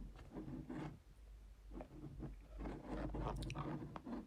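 Packaging being handled: irregular rustling and scraping as items are taken out of a box.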